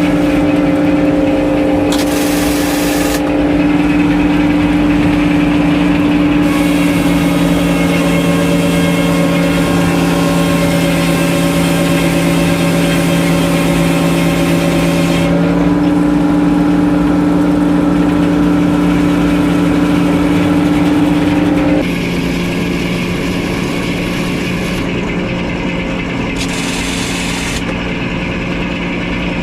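Engine driving a circular sawmill, running at a steady pitch, with a high hiss that comes and goes as the saw cuts. About 22 seconds in, the engine's pitch drops and it gets a little quieter.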